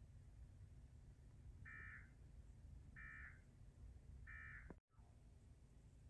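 Three faint Emergency Alert System end-of-message data bursts from a TV speaker: short buzzy squawks about a second apart, signalling that the monthly test alert is over. The sound drops out completely for an instant just after the third burst.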